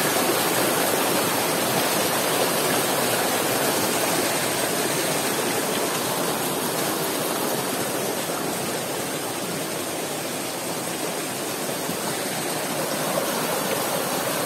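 A rocky stream rushing over boulders and small cascades: a steady wash of running water that dips a little in the middle.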